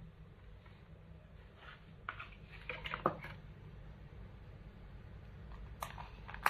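Faint handling clicks and rattles from an Umarex WG Glock 22 Gen4 airsoft pistol, clustered about two to three seconds in, then a sharp single click near the end and a loud shot at the very end.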